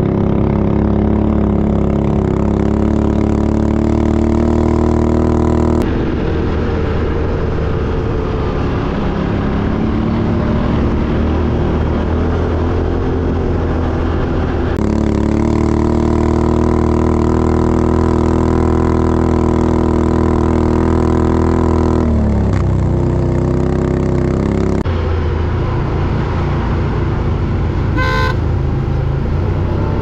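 Off-road ATV (quad bike) engines running at fairly steady revs, the sound changing abruptly several times as at edit cuts between clips. A short high-pitched beep near the end.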